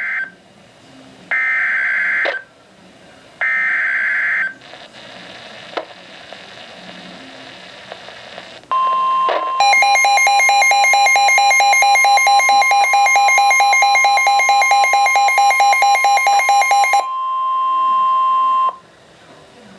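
Emergency Alert System flash flood warning tones: short screeching digital header bursts, two whole ones about a second apart after one cut off at the very start, then a steady single-pitch attention tone with a rapid pulsing alarm over it for about seven seconds. The alarm stops, and the steady tone cuts off alone about 19 s in.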